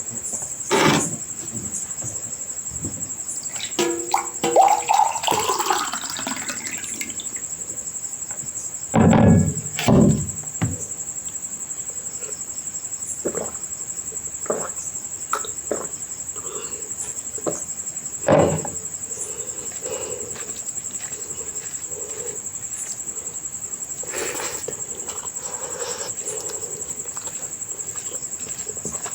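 Close-up eating sounds: chewing and handling rice and curry by hand, with scattered small clicks and a few louder knocks about nine and eighteen seconds in. A steady high-pitched chirring like insects runs underneath throughout.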